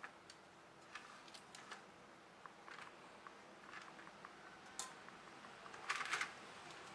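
Light plastic clicks and taps as the Logitech K220 keyboard's plastic key frame and case are handled and fitted together, with a short louder clatter about six seconds in.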